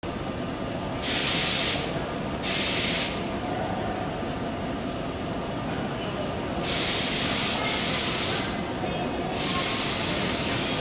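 R32 subway train standing at the platform with a steady low rumble, broken by repeated bursts of hissing air from its pneumatic system, about a second or two each, two short ones early and two longer ones in the second half.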